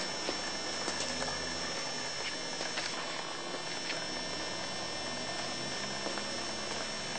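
Quiet background: a steady hiss with a thin high whine, and a few faint clicks and taps from the camcorder being handled.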